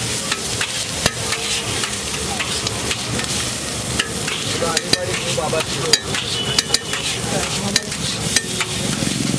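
A long metal spatula chopping and scraping a masala mixture on a large flat griddle (tawa), with irregular sharp metallic taps and clicks over the steady sizzle of frying oil.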